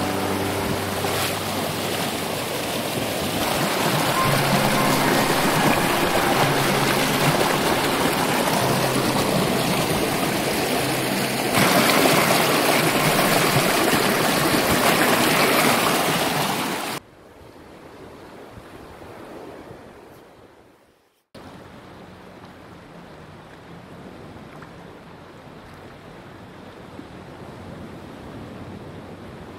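Surf breaking on a beach, a loud steady rush of waves, with faint background music in the first several seconds. About 17 seconds in, it cuts abruptly to a much quieter, steady wash of water.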